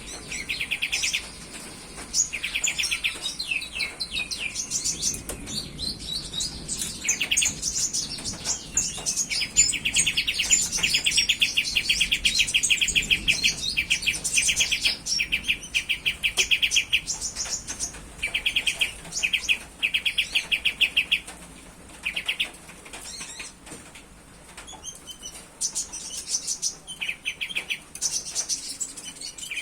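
Domestic canary singing a long, continuous song: fast rolling trills of rapidly repeated notes alternating with varied higher twittering phrases, broken by short pauses.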